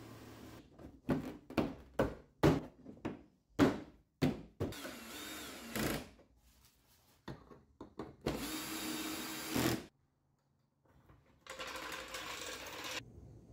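A power drill running in three short bursts of about a second and a half each, driving in fasteners as the bumper cover is refitted to the car. Before the bursts comes a quick run of about eight sharp knocks and clicks.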